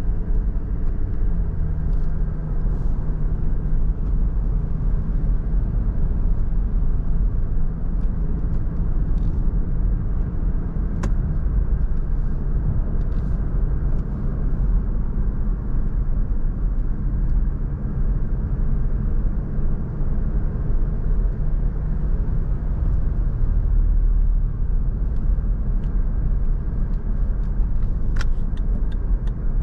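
Lexus LX500d SUV driving: a steady low rumble of engine and road noise with a faint engine hum, and a few light clicks near the end.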